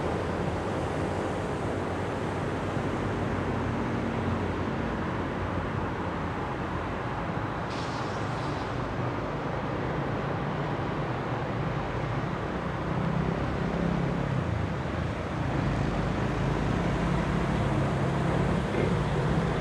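Double-stack intermodal freight train rolling over the rails, a steady rumble of wheels and cars. The low rumble grows louder in the last few seconds.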